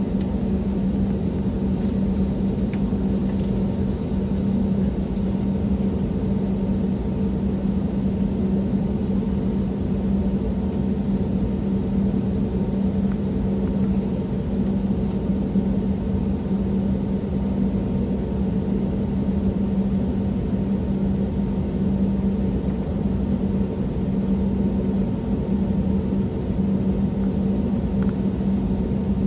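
Airbus A320neo cabin noise on the ground: jet engines at idle and the air-conditioning giving a steady rush with a constant low hum, unchanging throughout.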